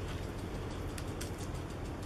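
Steady outdoor background noise, mostly a low rumble, with a few faint scattered ticks.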